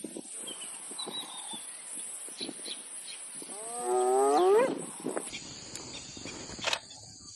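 A leopard's single drawn-out call, lasting about a second and rising in pitch as it goes.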